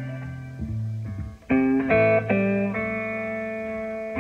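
Solo electric blues guitar: plucked chords and single-note licks over a steady repeating bass note, with sharper struck chords about a second and a half in.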